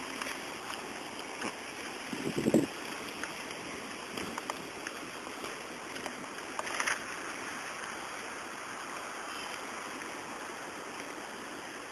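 Steady rushing noise of wind on the microphone while moving along an open path, with a few brief bumps, the loudest about two and a half seconds in and another near seven seconds.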